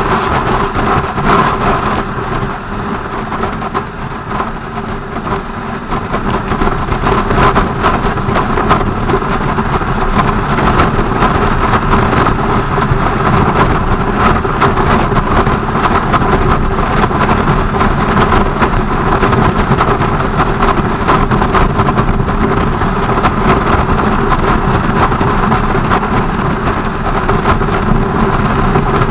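BMW R 1200 GS boxer-twin engine running steadily under a constant haze of road and wind noise, dropping a little in level for a few seconds near the start.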